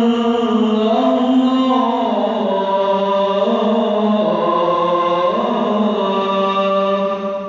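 A man chanting the adhan, the Islamic call to prayer: one long drawn-out phrase held on a few stepping notes, fading out near the end.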